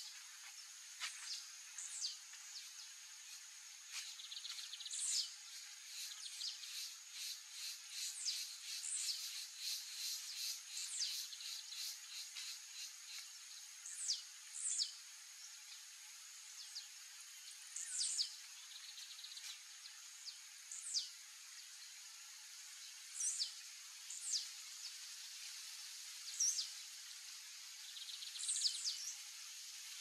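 Male blue-black grassquit giving its short, quick, falling 'tiziu' song note about a dozen times, a few seconds apart, as breeding-season song. A steady high whine runs beneath, and a run of rapid ticking comes from about a quarter of the way in to near the middle.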